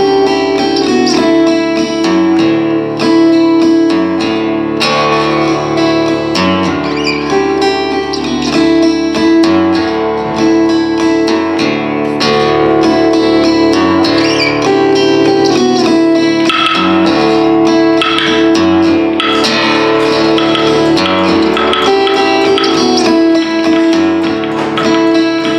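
Live instrumental music: plucked, guitar-like strings over a held drone, with a low part that repeats about every two seconds.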